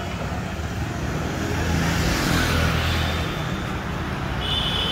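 Street traffic: a car drives past, its engine and tyres rising to a peak about two and a half seconds in and then fading. A short high-pitched tone sounds near the end.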